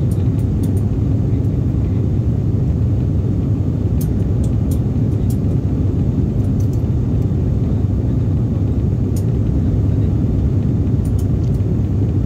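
Steady low drone of an ATR twin-turboprop airliner's engines and propellers, heard inside the passenger cabin as it climbs out after takeoff.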